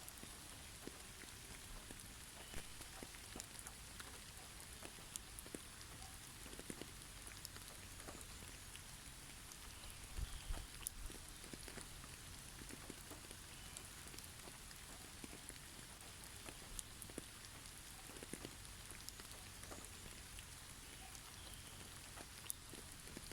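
Snow falling onto snow-covered trees: a faint, steady hiss with many irregular light ticks of snow and drops landing on branches, close to the sound of light rain.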